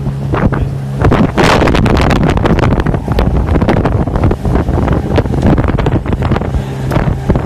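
Strong storm wind buffeting the microphone aboard a small yacht, loud and gusty with crackling. In the first second the boat's motor drones steadily underneath before the gusts drown it out.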